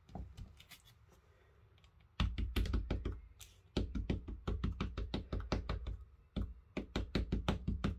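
Versafine Clair ink pad being tapped over and over onto a clear-mounted stamp to ink it: quick, light knocks, several a second, starting about two seconds in and broken by two short pauses.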